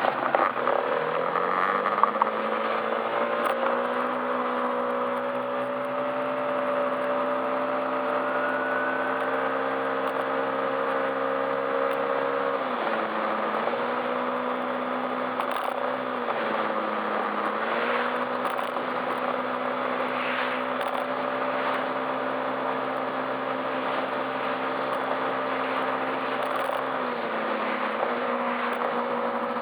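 Yamaha Majesty S scooter's 155 cc single-cylinder engine pulling away with rising pitch over the first few seconds, then running at a steady cruising speed. The pitch dips briefly three times in the second half as the throttle eases, over wind and road noise.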